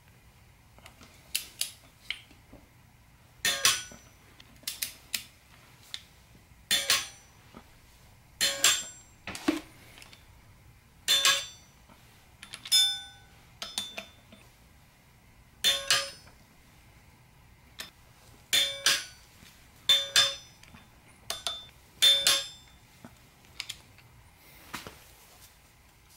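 A torque wrench and socket clicking and clinking against the flywheel bolts as the bolts are torqued down to 55 ft-lb. It is an irregular string of sharp metallic clicks, some ringing briefly, with short pauses while the wrench is moved from bolt to bolt.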